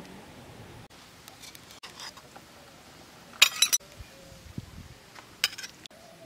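A steel ladle scooping curry in a steel wok, clinking and scraping against the metal. The loudest clatter comes a little over three seconds in and a smaller one about five and a half seconds in.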